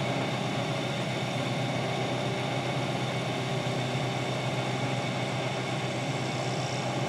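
Milling machine running with its end mill cutting a bronze crank arm: a steady, even machine hum with no change in pitch.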